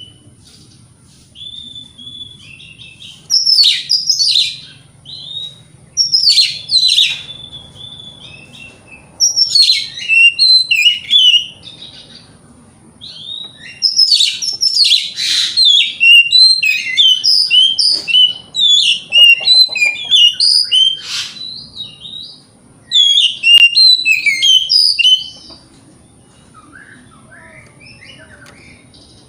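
Oriental magpie-robin (kacer) singing loudly in full voice, in bursts of rapid, varied whistled and chattering phrases separated by short pauses. The longest unbroken run of song fills most of the second half.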